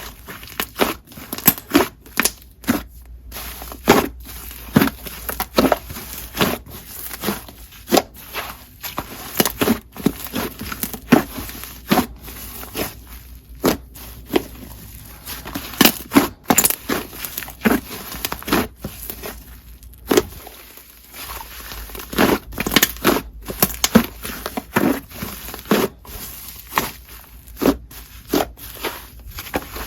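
Hands squishing, stretching and pressing a soft, fluffy clay slime, giving many irregular pops and crackles.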